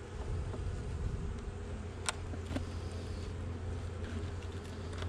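Honeybees buzzing steadily around an opened nuc box, with two sharp wooden clicks about two seconds in as the frames are handled.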